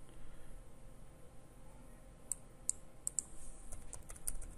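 Computer keyboard keys tapped in a few sparse, faint clicks, with a quicker run of keystrokes near the end: a password being typed at a login prompt.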